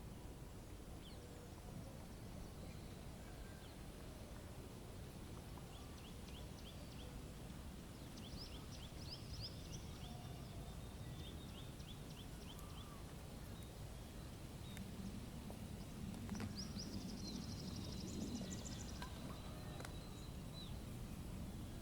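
Small songbirds chirping in quick runs of short high notes, several times, over a steady low rumble of wind.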